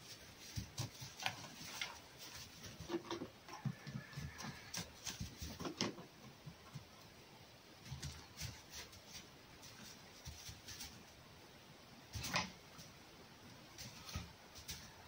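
Scattered rustles, scuffles and light thumps of a red fox and a kitten wrestling on hay bedding, with a louder thump about twelve seconds in.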